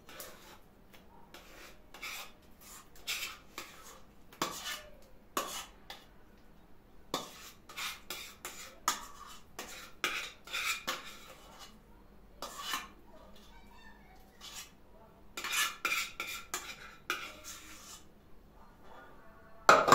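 A utensil scraping and clinking against a pot in short, irregular strokes as thick homemade custard cream is scooped out onto ladyfingers.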